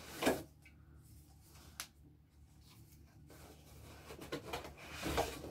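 Quiet handling noises from a cardboard box being unpacked: short rustles near the start and again around five seconds in, with a single light click in between as beer cans and packing are moved.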